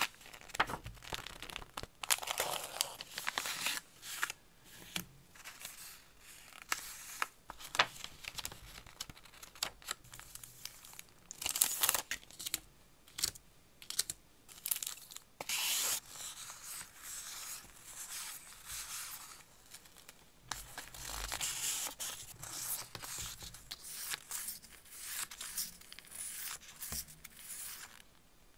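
Close-up handling of decorative paper sheets and stickers: irregular rustling, crinkling and tearing-like peeling sounds with short clicks as pieces are shuffled and set down.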